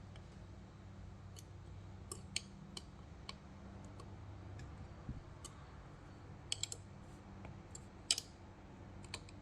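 Light, irregular metal clicks as the four screws of an Anycubic Mono X resin printer's build platform are tightened during leveling, over a steady low hum.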